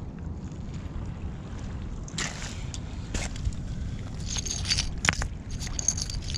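Stones, pottery shards and glass clicking and scraping against each other as a hand picks through foreshore debris, a run of short sharp clinks from about two seconds in, over a steady low rumble.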